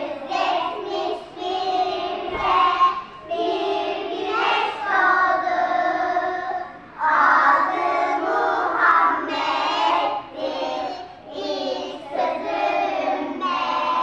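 A group of children singing a song together in unison, in phrases a few seconds long with short breaks between them.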